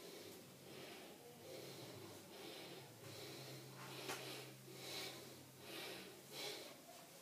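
A person breathing audibly in short, faint, airy puffs, quickening to a breath about every three-quarters of a second in the second half, over a faint low steady hum.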